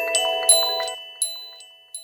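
Samsung Galaxy S III ringtone: a melody of struck, chime-like mallet notes. The last notes ring out and fade away from about a second in.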